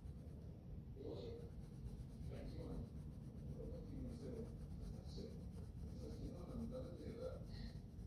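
Coloured pencil scratching across paper in short shading strokes, with faint voices in the background.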